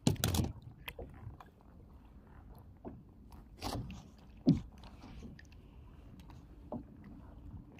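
Scattered knocks, scrapes and rubbing from hands working a fishing rod and reel in a kayak, a few sharper clicks among them, over a low steady rumble.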